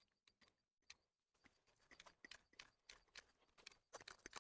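Faint, irregular clicks and creaks from a hand crimping tool with interchangeable dies being worked to crimp a lug onto amplifier power wire. The clicks come closer together and grow a little louder toward the end.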